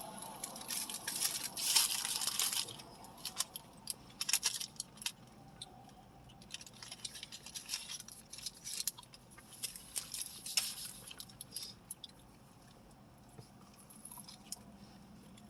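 Close-miked chewing and wet mouth sounds of someone eating a McGriddle breakfast sandwich: irregular smacks and clicks, busiest in the first few seconds and thinning out toward the end.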